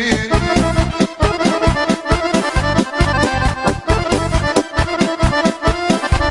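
Instrumental break in a Serbian folk-pop song: accordion playing the melody over a steady, quick beat.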